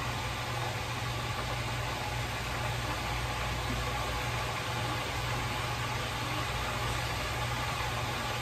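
Electric deep fryer frying a batch of tilapia fillets with its lid closed: a steady hiss over a low, even hum.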